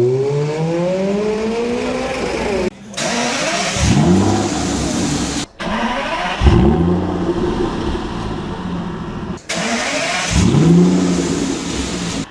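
Aston Martin DB9's V12 engine: first a rev climbing steadily in pitch, then three separate start-ups, each a sharp flare of revs that falls back to a steady idle.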